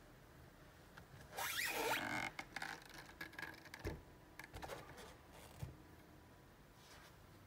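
Handling noise as the guitar and camera are moved: a loud rubbing swish about a second and a half in, then scattered light clicks and knocks that die away about halfway through.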